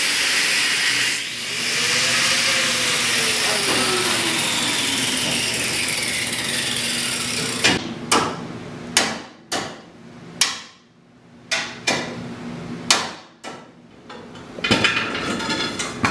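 A steady rushing noise with a slow falling whine through it, then, from about halfway, irregular hammer blows on the car's front end, about eight sharp strikes between half a second and a second and a half apart, closing in a quick run of lighter knocks near the end.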